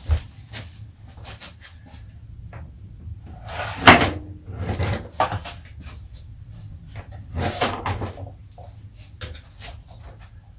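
Scattered knocks and clunks as weighing scales are taken out from under a model aircraft's wheels and the model is set down on the workbench, the loudest knock about four seconds in.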